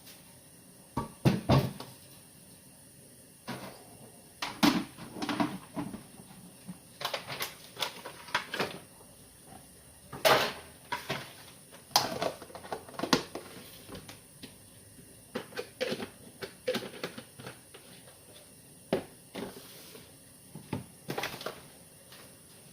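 Kitchen clatter: irregular sharp knocks and clinks of cookware and utensils being handled, with cupboard doors bumping, spread across the whole stretch with short quiet gaps between.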